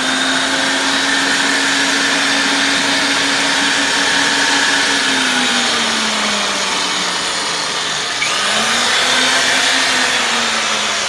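Ridgid 535 pipe threading machine running in reverse: its electric motor and gear drive make a steady whine. The pitch sags partway through, then picks up again about eight seconds in.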